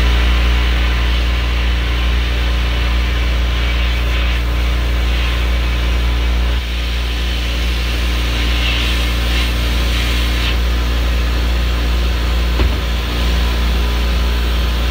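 Sandblasting inside a blast cabinet: a steady loud hiss of abrasive media from a pressure-pot blaster striking a steel motorcycle rim, with a constant low machine hum underneath. The hiss brightens for short stretches a few times as the nozzle moves over the rim.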